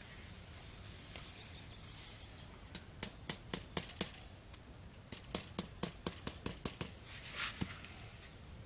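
A small bird chirping: a quick run of about eight high chirps, then scattered sharp, high ticks over the next few seconds, and a brief rustle near the end.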